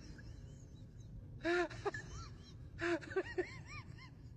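Two breathy gasps, about a second and a half apart, each followed by a quick run of short, high, rising-and-falling vocal squeaks, about five a second near the end.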